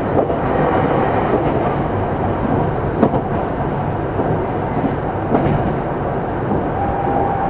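Meitetsu electric train set 317F running, heard from on board: a steady rolling rumble with three short wheel knocks over rail joints.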